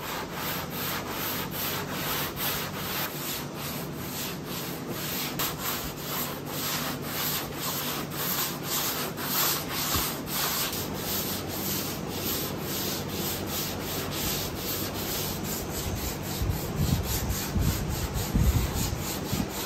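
Hand block sanding of cured high-build primer on a truck hood, with a polycarbonate sanding block and 180-grit paper: an even rhythm of back-and-forth rasping strokes, about two to three a second. A few low thumps come near the end.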